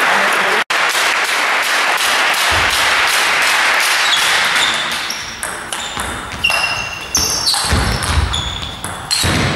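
Applause in a sports hall dying away over the first few seconds, then a table tennis rally: quick sharp clicks of the celluloid ball off bats and table, with short high squeaks of shoes on the hall floor.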